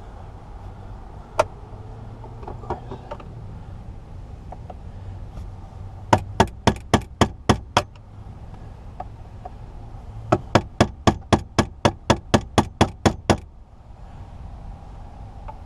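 A hammer tapping rapidly on the armrest's metal retaining tabs to bend them: a single knock, then two quick runs of sharp taps, about five a second, the second run longer.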